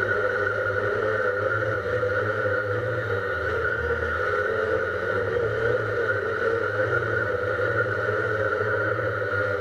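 Drone's electric motors and propellers whining steadily in flight, heard close up through the drone's own on-board camera.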